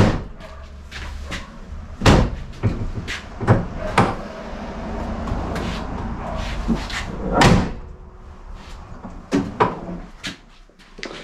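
Steel hood of a 1992 Chevy K1500 pickup being slammed shut and opened again: a series of metal slams and latch clunks.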